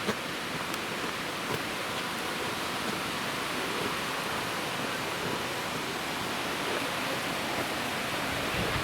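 Steady rushing of falling water, with a few faint scattered ticks.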